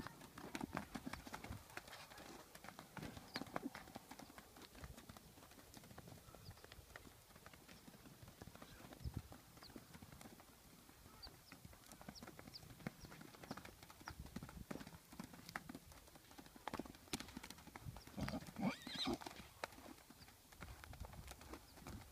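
Hoofbeats of a mustang filly running loose on arena dirt, an uneven patter of soft strikes that grows louder for a few seconds near the end.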